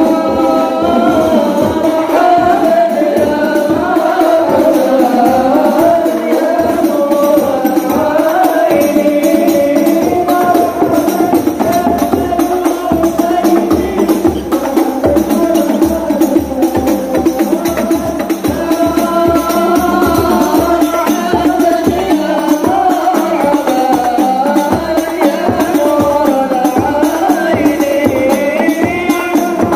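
Kompang ensemble: Malay hand-held frame drums beaten in a quick, steady interlocking rhythm while a group of men sings an Arabic marhaban in unison.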